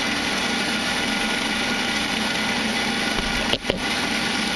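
Wellsaw 1118 horizontal band saw running steadily, its blade cutting through mild steel flat bar under coolant. The sound is smooth and even, with no hopping or squeal, the sign of a correct feed. A brief click comes about three and a half seconds in.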